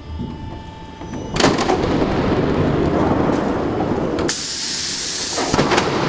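Trapezoidal sheet roll forming machine running: after a quiet hum, a sudden loud rush of machine and metal noise starts about a second and a half in, turning to a high hiss for about a second near the end before the broader noise returns.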